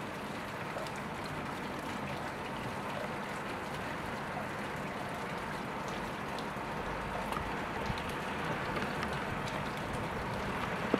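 Steady rain falling on pavement and nearby surfaces, an even hiss with scattered sharp drip ticks.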